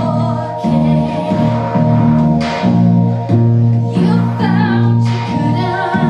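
A woman singing into a handheld microphone over a loud backing of sustained drone tones and a low bass line that changes note about twice a second.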